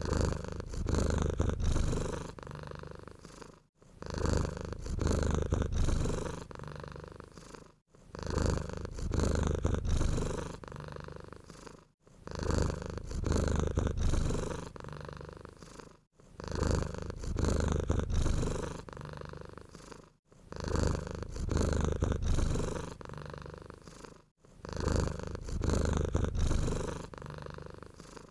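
Domestic cat purring, a low, rough, continuous rumble. It comes in the same swell repeated about every four seconds, each starting strong and fading before a brief break.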